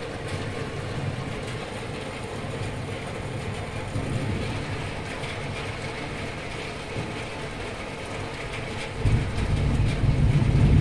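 Heavy rain pouring steadily during a thunderstorm, heard through a window pane. About nine seconds in, a deep rumble of thunder sets in and grows louder.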